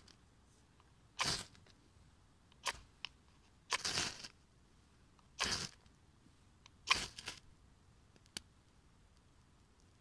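Ferro rod struck with the spine of a knife: about five short rasping scrapes, roughly one every second and a half, throwing sparks onto wood-shaving tinder.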